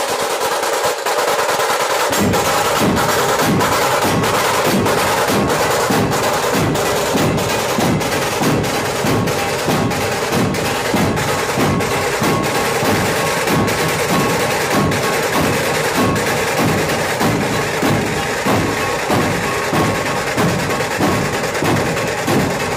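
Massed drums playing loudly: a continuous rattling roll, joined about two seconds in by deep drum strokes beating about twice a second.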